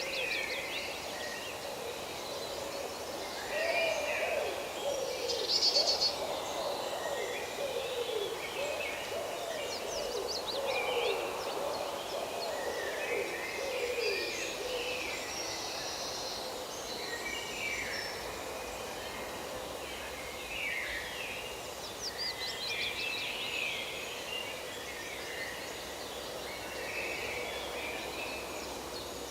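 Forest birdsong: several birds chirping and trilling with high calls throughout, and lower-pitched curving calls through roughly the first half.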